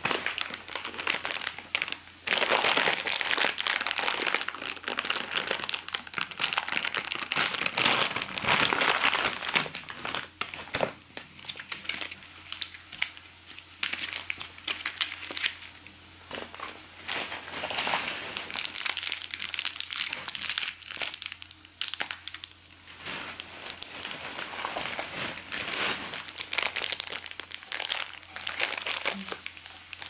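Plastic food packaging crinkling and rustling as it is handled. It is busiest and loudest for the first ten seconds or so, then lighter and more broken up.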